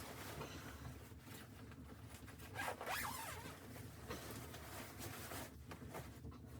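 A zipper being pulled: a ragged, scratchy run of noise lasting about five seconds, loudest about three seconds in, then stopping.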